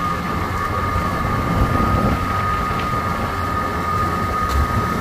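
Motorboat engine running steadily underway: a steady high-pitched whine over a low rumble.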